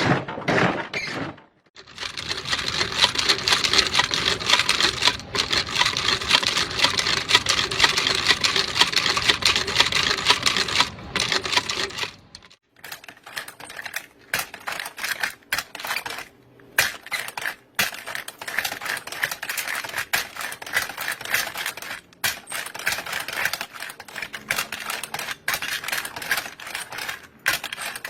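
Ammunition belt-loading machine worked by its handle, cartridges clicking and rattling rapidly as they are fed and pushed into the belt links. The clicking pauses briefly a couple of times, about twelve seconds in the longest, and is sparser after that.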